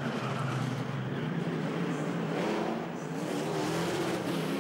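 V8 engines of the French-built Racecar stock cars running hard on track, the engine note rising about two and a half seconds in and dipping briefly near three seconds.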